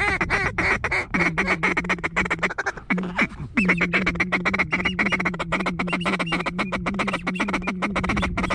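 Duck calls blown in a fast, continuous feeder chatter with quacks, the rapid pulses running almost without a break after a few short pauses in the first few seconds.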